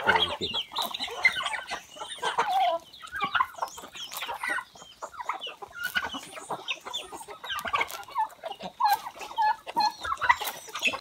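A mixed flock of chickens and turkeys clucking and calling as they crowd in to feed on scattered grain, many short overlapping calls throughout.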